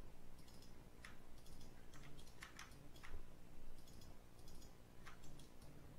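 Faint, scattered clicks from a computer mouse and keyboard, a single click or a quick pair every second or so, over a low steady background hum.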